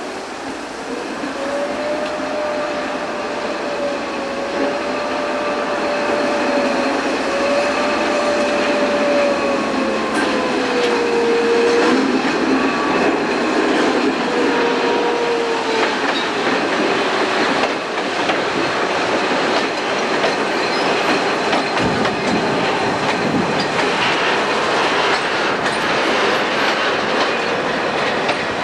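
SJ T44 diesel locomotive and its covered goods wagons rolling slowly by, the wheels squealing in a wavering tone for the first half and clicking over the rail joints. The train grows louder over the first dozen seconds as it comes closer.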